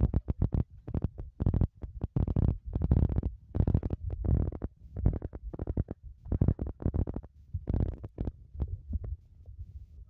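Irregular thumps and rustles of a phone being carried at a walk: footsteps and handling noise on the microphone, dying away about nine seconds in as the walker stops.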